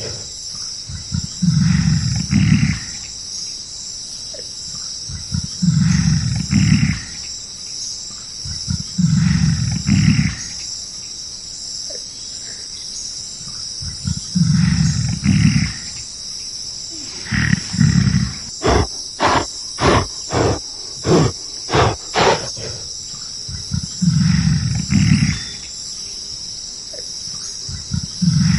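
Gorilla giving deep roaring calls again and again, each lasting a second or two, with a quick run of about eight sharp knocks about two-thirds of the way through. A steady high buzz of insects runs underneath.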